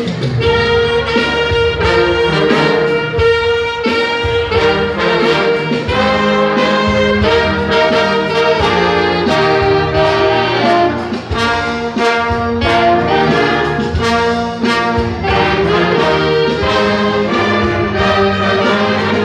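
An orchestra playing, its brass section of trumpets and trombones to the fore, with sustained chords over a steady percussive beat.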